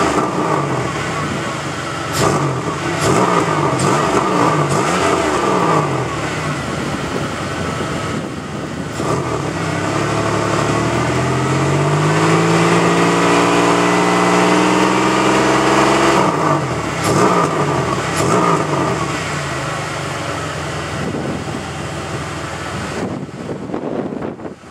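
1998 Pontiac Grand Prix GT's 3.8L 3800 Series II V6 being revved through its stock exhaust, whose resonator and rear muffler have rusted holes. It starts with a string of quick blips, then rises and holds at high revs for several seconds before dropping. A few more blips follow, and it settles back toward idle, cutting off near the end.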